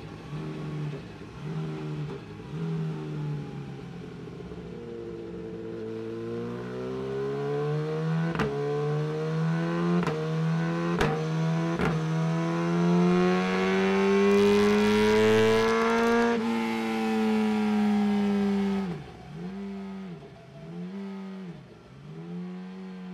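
Suzuki GSX-R1000 superbike's inline-four engine on a full Yoshimura titanium exhaust, pulling steadily up through the revs under load on a dyno run. It shuts off suddenly about 16 seconds in and falls back with a few dips and blips. A few sharp clicks sound partway through the pull.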